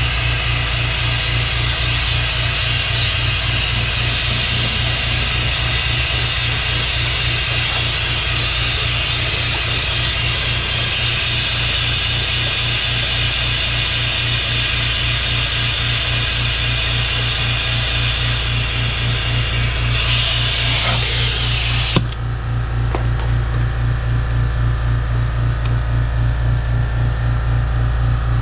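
Compressed air hissing through a venturi vacuum coolant-fill tool on the coolant reservoir, pulling vacuum on the cooling system, over an air compressor running with a steady low pulse. About three-quarters of the way through, the hiss stops with a click while the compressor runs on.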